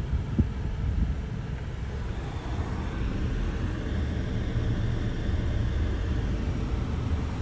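Car cabin noise: a steady low rumble from the engine and tyres as the car rolls slowly along, with a couple of small knocks in the first half second.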